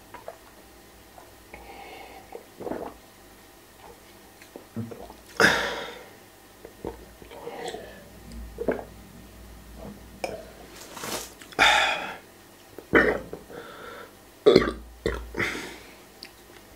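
A man drinking Coca-Cola from a glass, with several loud burps spaced through the stretch.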